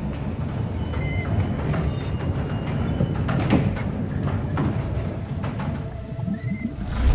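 A low, steady mechanical rumble with scattered clicks and a few short high beeps, like a film sound effect for a machine running.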